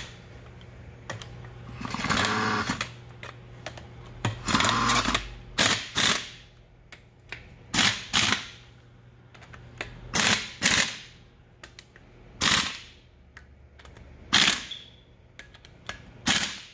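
Impact wrench with a 10 mm Allen (hex) bit, hammering in about ten short bursts a second or two apart as it runs down the bolts of a pump housing, each bolt driven only briefly rather than to full torque.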